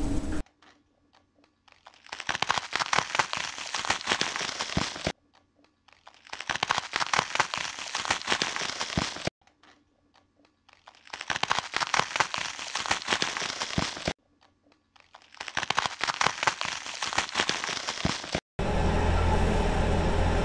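Loud close-up crunching of dry toast being bitten and chewed, in four bouts of about three seconds each with short silent pauses between them. A steady low hum takes over near the end.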